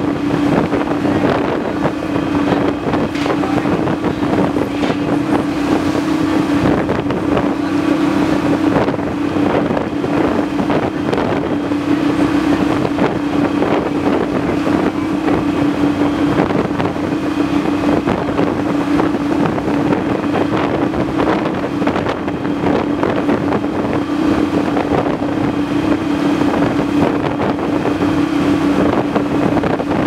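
Motor vessel under way in rough water: a steady engine drone under the rush and splash of waves breaking along the hull, with wind on the microphone.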